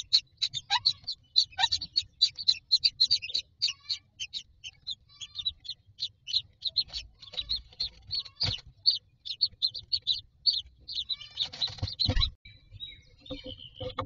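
Common myna nestlings begging while an adult feeds them: a fast run of short, high cheeps, about five a second, that slows and thins out later on. A sharp knock comes about eight and a half seconds in, and a brief rustling scuffle near the end.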